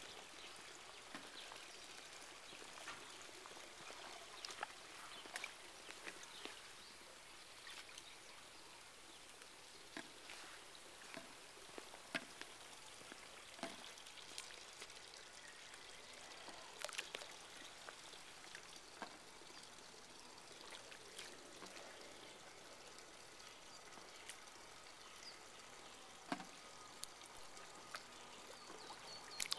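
Swimming-pool water sloshing and lapping against the pool edge, faint, with many scattered small slaps: waves set going by a distant magnitude 7.2 earthquake.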